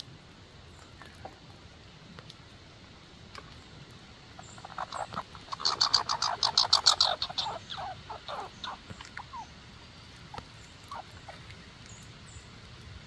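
American red squirrel chattering: a rapid rattle of quick pulses starting about four and a half seconds in, loudest near six to seven seconds, then slowing and fading out by about nine seconds.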